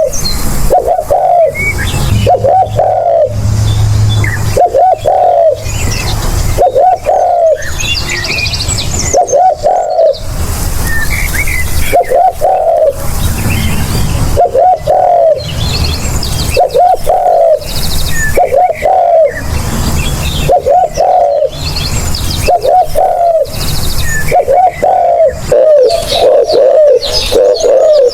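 Spotted dove cooing over and over, its short rolling phrases repeating about every second or so, with small birds chirping faintly at a higher pitch.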